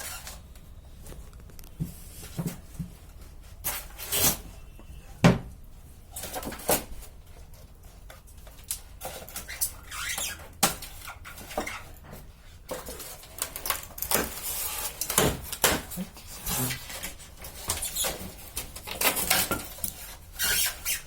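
Packaging being handled and pulled off a new refrigerator: irregular knocks, clicks and plastic and cardboard rustling, with a sharp knock about five seconds in.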